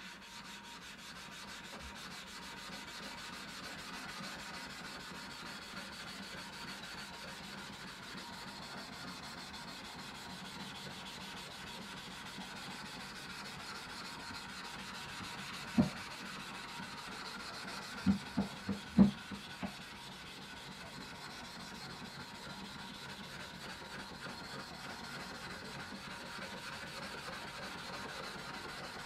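A Tsunesaburo swallow-steel kanna (Japanese hand plane) blade rubbed across a wet synthetic waterstone, making a steady gritty scraping. Four or five short sharp knocks come about halfway through.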